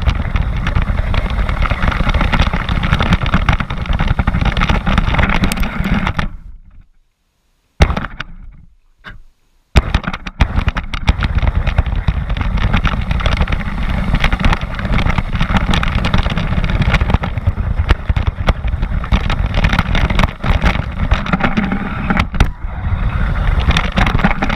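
An RC car driving over gravelly tarmac, heard from a camera mounted on the car: a loud, dense rattle of tyres, drivetrain and chassis. About a quarter of the way in, the sound drops away to near silence for roughly three seconds, broken by two sharp knocks, then the driving noise returns.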